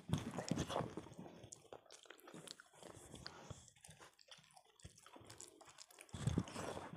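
Wet chewing and mouth sounds of people eating khichdi and chicken kosha, with irregular smacks and clicks; louder just after the start and again about six seconds in.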